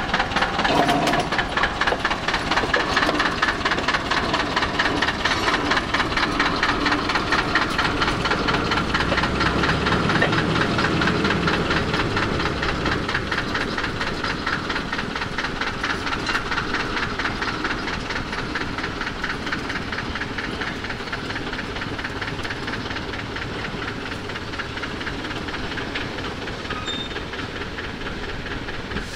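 Engine of a small narrow-gauge rail tractor running with a steady, rapid beat as it moves slowly along the track, gradually growing quieter toward the end.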